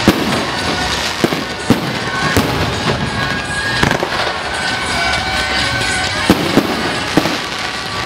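Electrically fired firecrackers going off in a continuous dense crackle, with louder single bangs standing out every second or so.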